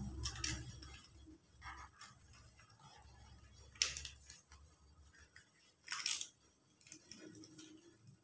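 Banana leaf crackling as it is folded by hand into a packet: a few short, crisp rustles, the loudest about four and six seconds in.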